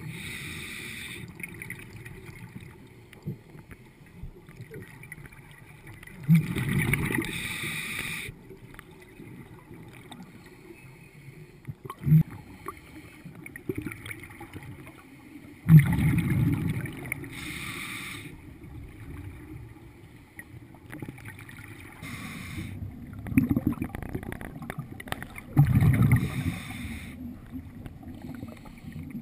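A scuba diver breathing through a regulator underwater: the hiss of each inhalation and the low, gurgling rumble of exhaled bubbles, repeating every several seconds.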